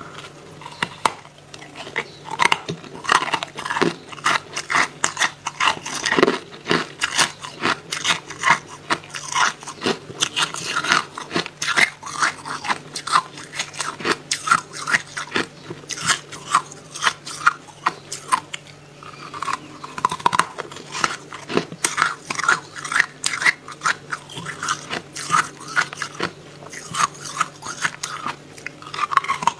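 Freezer frost being bitten and chewed close to the microphone: a steady run of crisp crunches, several a second, over a steady low hum.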